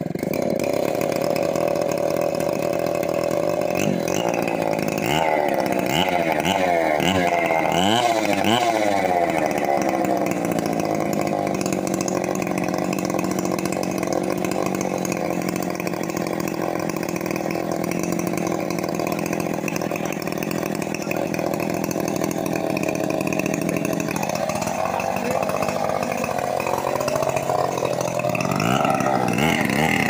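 Two-stroke chainsaw running. It is revved up and down several times in the first ten seconds, then held at a steady speed. Near the end its note changes as the chain bites into the teak trunk.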